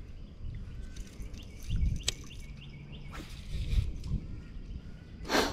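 Small birds chirping in short rising notes over a low rumble of wind on the microphone, with a sharp click about two seconds in and a brief noisy rush near the end.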